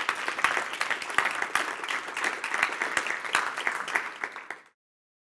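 Audience applauding, with many dense, irregular claps; the applause cuts off abruptly near the end.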